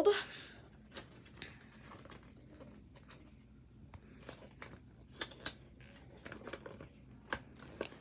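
Folded paper instruction leaflet being unfolded by hand: faint rustling and crinkling with scattered small crackles of the paper.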